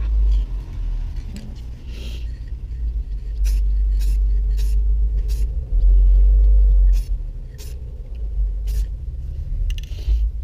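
Wind rumbling on the microphone, strongest about six seconds in, with a few sharp clicks scattered through the middle and two brief hisses.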